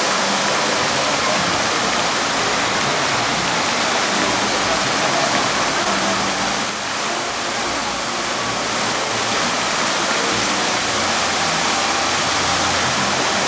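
Fountain jets splashing into a large pool: a steady, loud rush of falling water.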